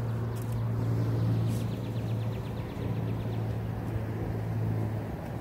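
Steady low engine hum, as of a vehicle idling, over outdoor background noise, with a faint rapid ticking for about a second and a half near the middle.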